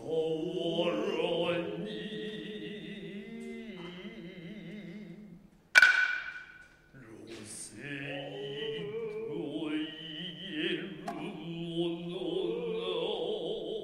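A male voice chanting Noh utai in long, wavering held tones. About six seconds in there is a single sharp stroke on the kotsuzumi shoulder drum, the loudest sound, which rings briefly. The chant resumes about a second later.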